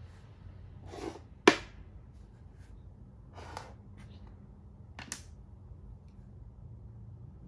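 Makruk (Thai chess) pieces being slid and set down on the board: one sharp, loud click about a second and a half in, and softer scrapes and clicks around three and a half and five seconds.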